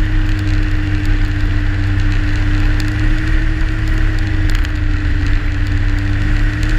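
Yamaha Sidewinder snowmobile's turbocharged three-cylinder four-stroke engine running steadily at cruising speed on a groomed trail, its pitch holding level. The track running over packed snow adds a constant hiss and scattered light clicks.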